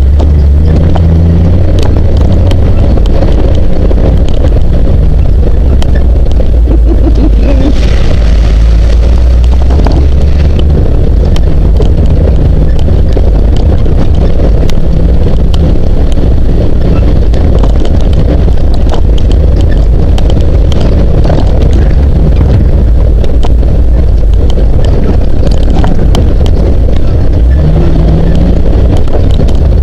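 Jeep CJ7 driving on a rough dirt trail: a steady low engine and road rumble with wind buffeting the microphone, and scattered small knocks and rattles throughout.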